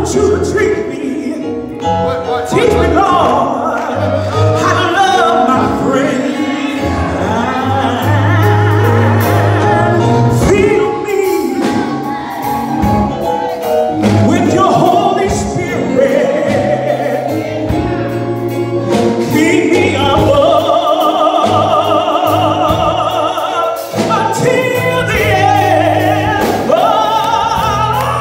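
A woman singing a gospel song solo into a handheld microphone, holding long notes with vibrato.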